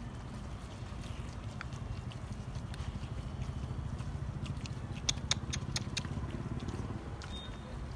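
Several dogs eating from a torn plastic food bag on the ground: chewing, with a quick run of sharp clicks a little past the middle, over a steady low rumble.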